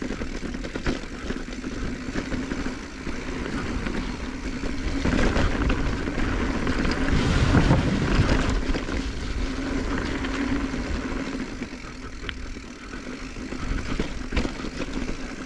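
2021 Giant Trance X 29 full-suspension mountain bike descending a dirt trail: a steady rush of knobby tyres on dirt with a constant rattle of clicks and knocks from the bike over rough ground, loudest about halfway through.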